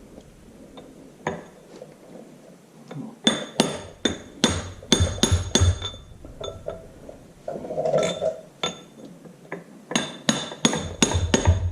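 Light hammer taps on the sheet-metal dirt shield of a tractor front wheel hub, driving it onto the hub over the seal. There is a single tap about a second in, then a quick run of about eight taps, and another run of about six near the end, each with a short metallic ring.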